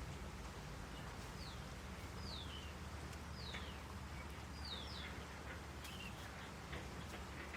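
A bird repeating short, high whistled notes that slide downward, about one a second, over a low steady rumble.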